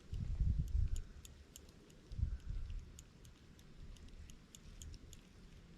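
Fishing reel being cranked to bring in a hooked fish, ticking steadily about three times a second, with a few low thumps on the microphone in the first second and again just after two seconds.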